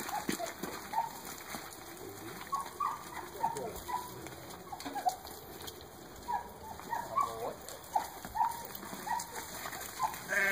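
Short clucking calls repeated irregularly, typical of barnyard chickens, over a light crackle of sheep and dog feet scuffling through dry leaf litter.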